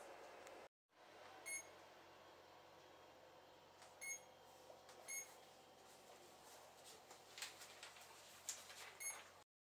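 Four short electronic beeps, a few seconds apart, over near-silent room tone, with a few faint knocks near the end.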